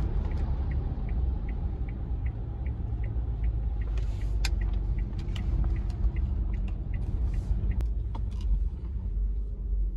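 Car cabin while driving on a wet road: steady low engine and tyre rumble. For the first few seconds a turn-signal indicator clicks evenly, about three ticks a second, then stops.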